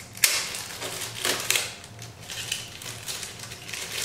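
Packaging rustling and crinkling in a series of short scrunches as small camera accessories are handled and moved aside.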